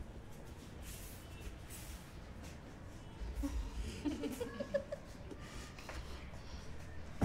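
Faint handling of a small wooden shelf unit as two people lift and shift it, with a low bump about three and a half seconds in.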